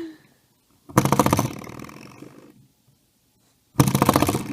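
A spring doorstop is flicked and twangs twice, about three seconds apart. Each time a sudden buzzy boing dies away over a second or so, and the second comes near the end.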